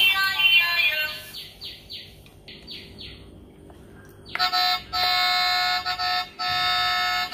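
Electronic music from a baby walker's toy tray: a melody runs out about a second in, and after one of its buttons is pressed, about four seconds in, the tray plays a new electronic tune in held notes with short breaks.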